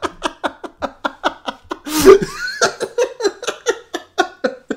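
A man laughing hard in quick, rhythmic bursts of about five or six a second. About two seconds in there is a sudden loud burst of breath, then the laughter carries on and tails off near the end.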